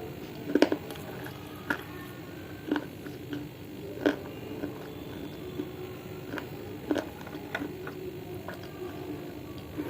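Close-up mouth sounds of someone chewing edible clay: wet, squishy chewing with sharp crunches and clicks at irregular intervals, roughly one a second, the loudest about half a second in.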